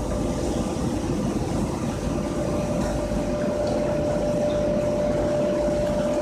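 Large-capacity grain dryer running: a steady mechanical rumble with a constant hum-like tone over it.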